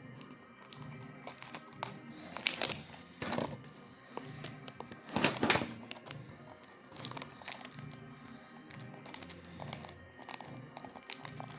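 Sticky tape pulled off the roll and torn, with paper crinkling and small handling clicks; the loudest rips come about two and a half, three and five and a half seconds in. Quiet background music runs underneath.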